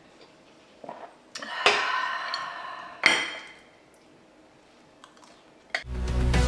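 A few clinks and knocks of hard kitchen objects, two of them loud and ringing briefly for about a second. Outro music starts near the end.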